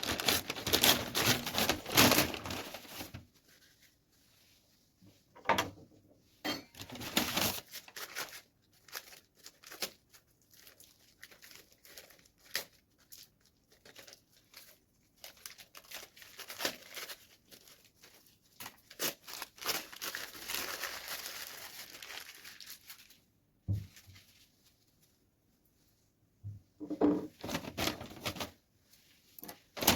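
Close-miked eating sounds of chicken and noodles: irregular bursts of tearing, crinkling and clicking, loudest in the first few seconds, with a couple of quiet pauses.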